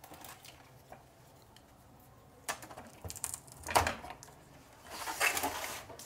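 Handling noise as small TV speakers and their wiring are pulled out of a plastic TV back cover: a few sharp plastic clicks from about two and a half seconds in, then rustling and scraping near the end.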